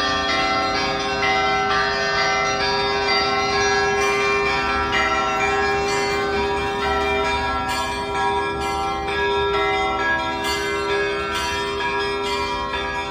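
Orthodox church bells ringing a festive peal (kolokolny zvon): many bells struck in quick, overlapping succession, with a deeper bell's tone ringing on underneath. The peal is the call to Sunday Divine Liturgy.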